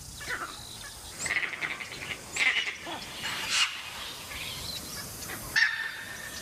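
Wild animals' alarm calls at a leopard: three short, sharp calls about a second apart, with birds chirping in the background and a brief whistle near the end.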